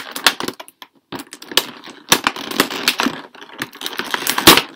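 Stiff, shiny plastic doll packaging crinkling and crackling in irregular sharp clicks as it is squeezed and pried at by hand while it resists opening. The loudest crack comes near the end.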